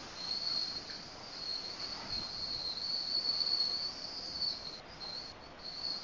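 Insects trilling steadily in one high-pitched band, breaking off briefly twice near the end, over a faint even hiss.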